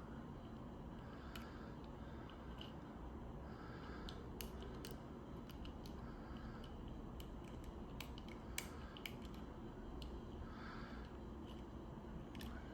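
Faint, irregular metallic clicks and small scrapes of lock picking tools working inside a small Chateau disc padlock. The lock is still not picked, with little feedback from the discs.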